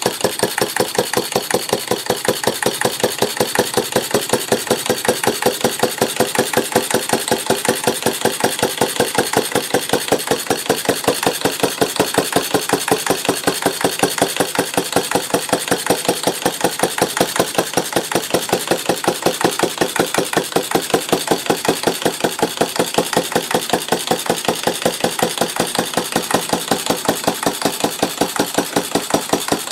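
Antique Stover/Duro AC 1/2 HP air-cooled single-cylinder engine running steadily, firing on an even, regular beat.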